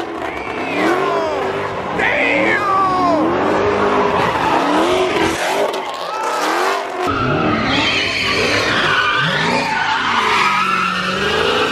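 Dodge Charger and Challenger muscle cars doing donuts: engines revving up and down again and again as the rear tyres spin and screech on the pavement, with a brief easing off the throttle about halfway through.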